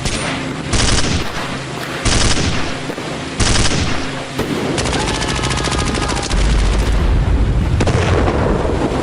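Battlefield gunfire: several sudden bursts of shots, then a long stretch of rapid automatic fire over a deep rumble.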